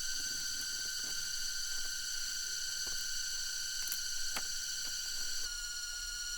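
Steady high-pitched drone of rainforest insects, with scattered light clicks and ticks. The drone shifts slightly about five and a half seconds in.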